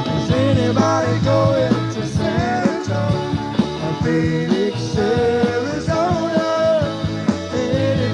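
Live soundboard recording of a country-rock band playing: bass and drums under a lead melody line that bends in pitch.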